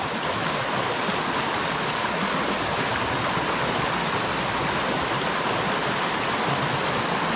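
Small mountain creek rushing over rocks: a steady, even water rush.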